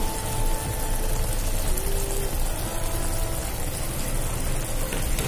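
Tomato and onion masala frying in a pan with a steady sizzle, mustard paste just added to it.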